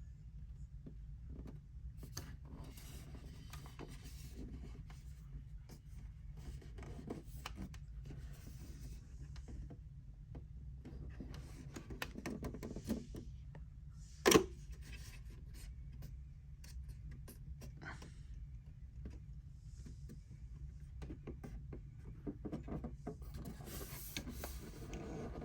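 A plastic collectible popcorn container being handled: soft rubbing and scraping, with one sharp knock about halfway through, over a steady low hum.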